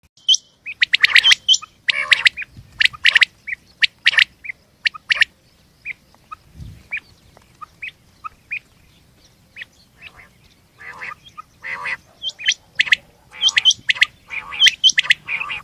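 Quails calling, rain quail with common quail: short, sharp, repeated notes given in quick series. The calling thins out to scattered single notes from about five to ten seconds in, then comes thick and fast again near the end.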